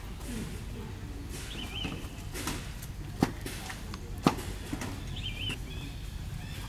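Outdoor forest ambience with a low steady rumble: a bird repeats a short, wavering high-pitched call twice, a few seconds apart. Two sharp clicks, about a second apart in the middle, are the loudest sounds.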